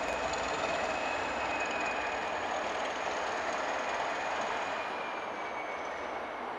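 Northern Ireland Railways Class 450 diesel-electric multiple unit pulling away and receding. Its running makes a steady dense rumble with two thin high tones over it, and the tones and the overall level fall slightly near the end.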